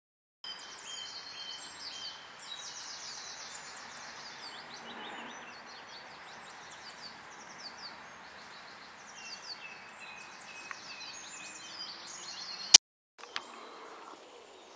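Wild birds singing, with rapid chirping trills over steady outdoor background hiss. A single sharp click sounds near the end, followed by a brief cut-out.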